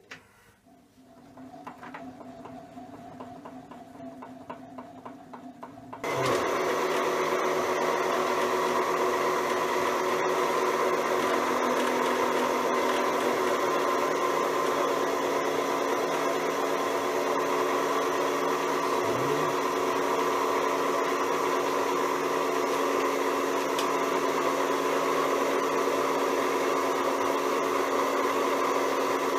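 Schaublin SV52 milling machine's table power-feed motor and gearbox switching on suddenly about six seconds in, then running steadily with a hum made of several steady tones. It is a little bit noisy. Before it starts there is a quieter, faint mechanical sound.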